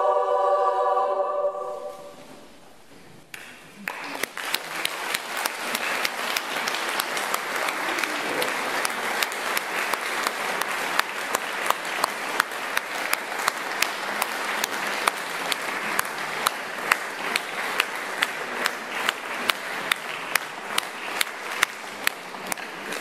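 A women's choir holds its final chord, which ends about a second and a half in. After a short pause an audience breaks into applause, which grows into steady clapping in unison about twice a second.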